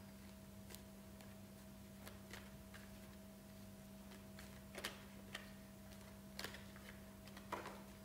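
Faint, irregular soft clicks and taps of a deck of cards being shuffled and handled, over a low steady hum.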